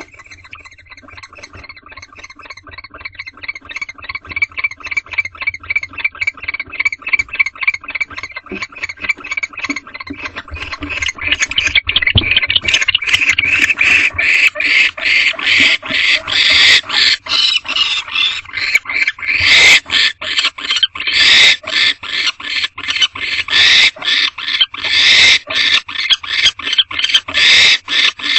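Barn owls calling in a long, even run of short raspy pulses, about three to four a second, growing much louder about twelve seconds in: the rapid twittering of a barn owl pair during mating.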